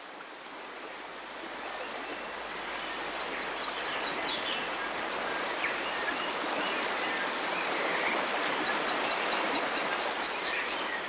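Shallow stream rippling over stones, fading in over the first few seconds, with birds calling above it in short runs of high chirps and warbling notes.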